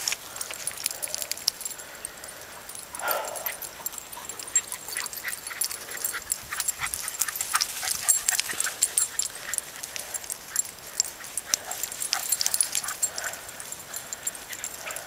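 Dog whining: one falling whine about three seconds in, then a few fainter short whimpers, over a steady scatter of sharp clicks and ticks.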